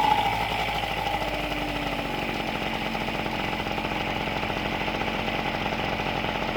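TGB Bunny 50cc scooter engine, just rebuilt with new variator roller weights. Its revs fall away at the very start, then it idles steadily with an even, rapid beat.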